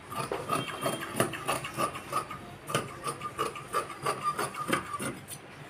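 Tailoring shears cutting blouse fabric: a quick run of irregular snips, about three or four a second, with a thin steady tone beneath, stopping near the end.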